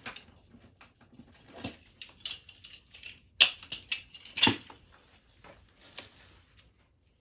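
Clicks and knocks of tools and fittings being handled while a steam boiler's sight glass valve is readied for fitting, with two sharper knocks about three and a half and four and a half seconds in.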